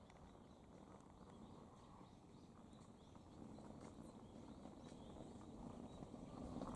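Near silence: faint outdoor background rumble with a few soft ticks, growing slightly louder toward the end.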